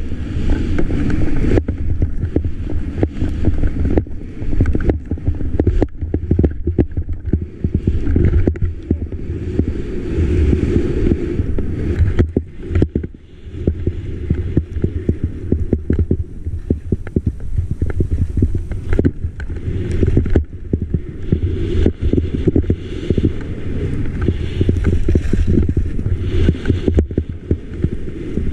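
Wind buffeting the microphone of an action camera carried by a skier moving fast through deep powder: a loud, rough low rumble with a hiss of skis cutting through snow. It eases briefly about halfway through.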